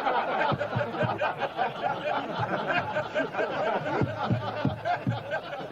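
A group of people laughing and chuckling together at the punchline of a joke, many voices overlapping.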